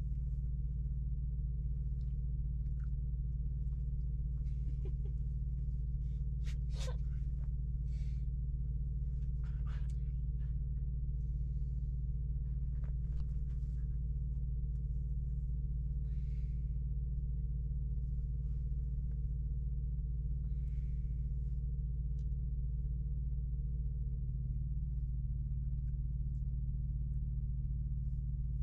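Steady low mechanical hum inside a semi truck's sleeper cab, with faint scattered rustles and light clicks as a dog and bedding move about. A fainter, higher steady tone in the hum stops near the end.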